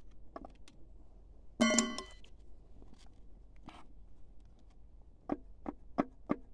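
A screwdriver knocks against the dismantled diesel engine's metal parts with one short ringing clank about a second and a half in. Scattered light clicks follow, then a quicker run of sharp clicks near the end as the rear of the crankshaft by the seal and flywheel is worked by hand.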